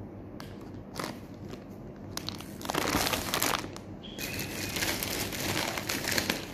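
Plastic instant-noodle packets and wrapping crinkling as they are handled and set down, in scattered bursts that grow busier from about two seconds in.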